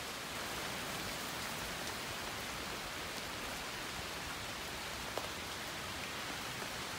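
Steady rain falling, an even hiss, with one small tap about five seconds in.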